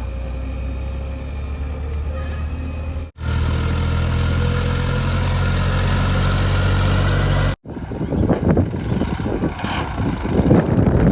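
Heavy diesel engine of a backhoe loader running steadily, with a slightly higher, steadier note after a sudden break about three seconds in. It cuts out for an instant again past the middle, and then gives way to irregular rough, gusty noise.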